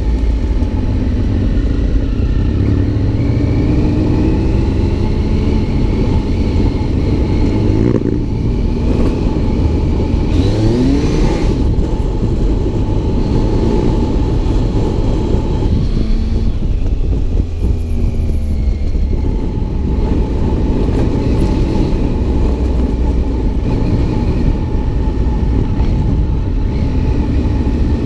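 Adventure motorcycle engine running under way over a heavy low rumble, its revs climbing a couple of times, about a third of the way in and again just past the middle.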